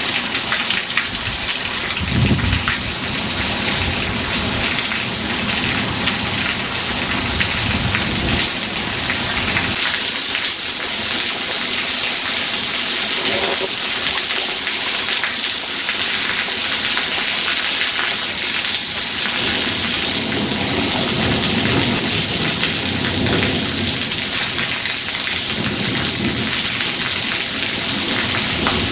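Heavy downpour of rain beating steadily, with thunder rumbling low several times: about two seconds in, again from about six to nine seconds, and repeatedly in the last third.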